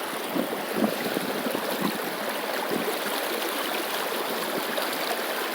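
Shallow river running over rocks, a steady rushing and babbling of flowing water.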